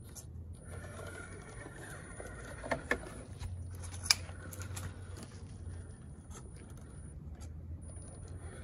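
Electric drivetrain of an Element Enduro Sendero RC trail truck crawling over rounded rocks: a steady low hum with a thin high whine, and a few sharp knocks as the tyres and chassis clatter on stone, the loudest about four seconds in.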